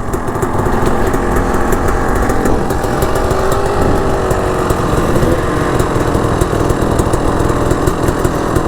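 Dirt bike engine running hard under throttle, its pitch rising and falling as the revs change.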